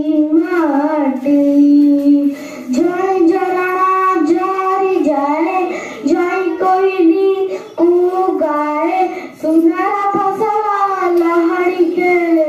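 A young girl singing a patriotic song solo into a microphone, in long held notes with brief pauses for breath.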